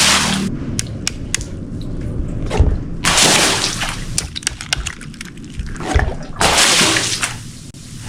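Water balloons bursting and splashing: three rushes of splashing water about a second long each, every one preceded by a dull thud, with sharp pops and clicks in between.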